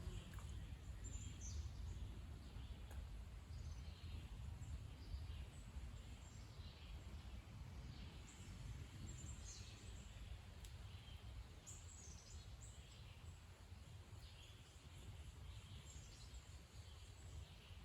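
Faint outdoor background: a steady low rumble with scattered short bird chirps.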